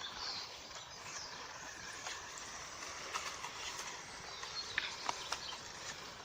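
Remote-control car rattling over rough ground: scattered light clicks and knocks over steady background noise.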